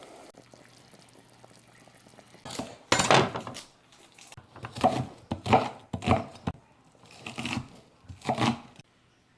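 Kitchen handling noises: a faint hum, then from a couple of seconds in a run of short, irregular scraping and rustling knocks, several in a row with gaps between them.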